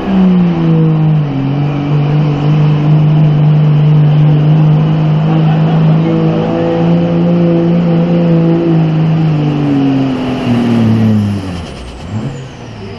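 Diesel pickup truck engine running at full throttle under heavy load while pulling a weight sled, with a high turbo whistle above it. The engine's pitch dips once in the first second or so, then holds steady for about ten seconds; near the end the engine and whistle fall away as the throttle comes off.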